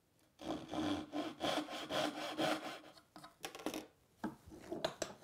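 Hand saw cutting dovetail tails in a mahogany board: a run of rasping strokes, about two a second. The sawing stops about three seconds in, followed by a few light knocks and taps.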